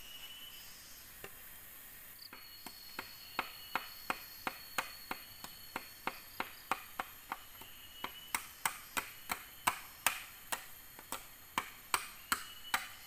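Machete chopping at the base of a bamboo pole: a steady run of sharp strikes, about three a second, starting a couple of seconds in and growing louder toward the end. Insects buzz steadily in the background.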